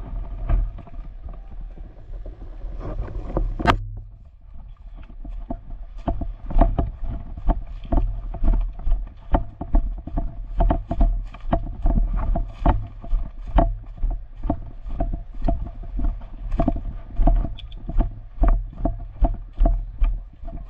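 Footsteps of a person walking with gear jostling, about two steps a second from roughly six seconds in, preceded by one sharp click just before four seconds.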